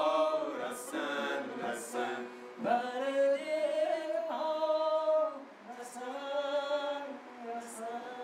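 Singing: a slow melody of long held notes that bend and glide between pitches.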